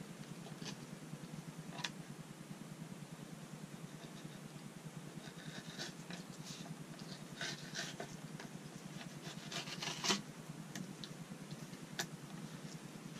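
Fillet knife slicing and scraping through a perch on a wooden cutting board: scattered soft scrapes and clicks, busiest in the middle stretch, over a steady low hum.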